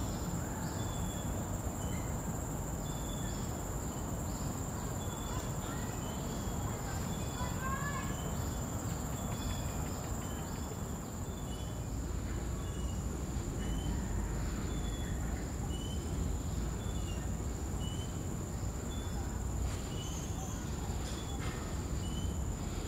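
Outdoor garden ambience: a steady low rumble under a constant high whine, with a short high chirp repeating about once a second. A brief bird call comes about eight seconds in.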